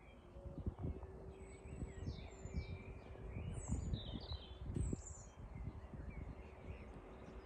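Small songbirds chirping and calling in short bursts of high notes, over an uneven low rumble and a faint steady hum.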